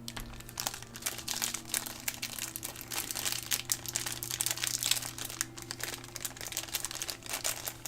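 Small crackling and clicking handling noises as a machine screw is driven into the model truck's chassis with a screwdriver, over a steady low hum.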